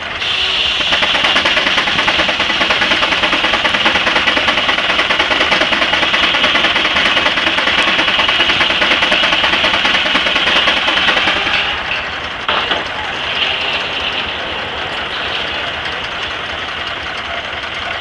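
Advance Rumely steam traction engine running under load, driving a circular sawmill by a flat belt, with a fast, even beat. The sound is loud for the first dozen seconds, then eases off.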